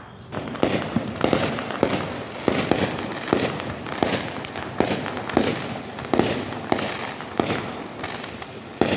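Aerial fireworks going off in a rapid, even string of sharp bangs, about two a second.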